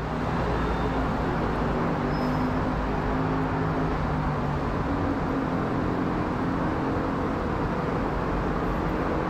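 Boeing 777-300ER jet airliner passing overhead, its GE90 turbofans making a steady rumble with a few low droning tones that drift slightly in pitch.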